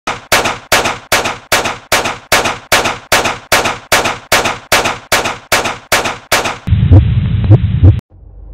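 A rapid, evenly spaced series of sharp cracks, about two and a half a second, each dying away quickly. After six and a half seconds it gives way to a loud low rumble with a few thuds, which cuts off abruptly.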